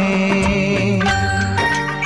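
Instrumental passage of a Hindi film song, with no singing: steady held notes, then a new phrase of bright, chiming notes coming in about a second in.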